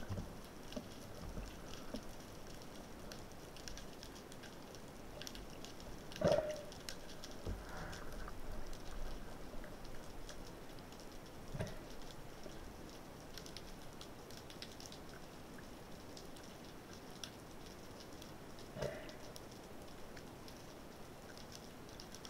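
Underwater ambience recorded by a camera in its housing: a steady hiss with dense faint crackling. There are three short louder knocks or gurgles, about six, twelve and nineteen seconds in.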